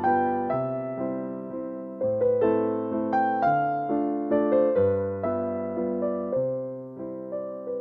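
Background piano music: a gentle melody over repeated chords, each struck and left to fade.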